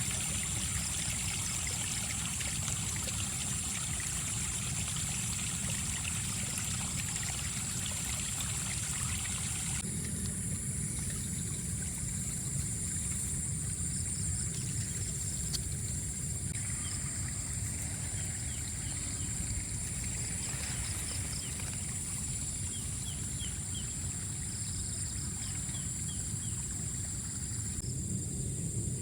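Outdoor rural ambience: a steady high-pitched drone over a low rumble, with faint short chirps here and there. The background changes abruptly about ten seconds in and again a few seconds later.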